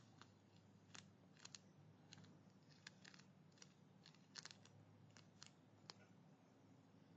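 Faint, irregular sharp clicks and ticks, about a dozen, some in quick pairs, over a low background hum.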